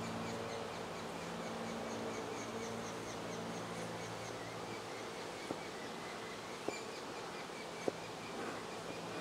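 Saskatraz honey bees buzzing around an open hive, a steady hum. Three short, light clicks come in the second half.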